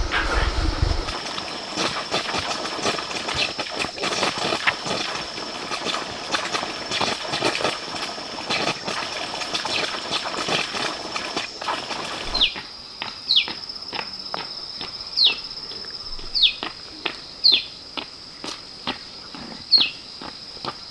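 A steady high insect drone under scattered clicks and rustles, busier in the first half. From about halfway, a bird gives a short falling chirp, roughly once a second.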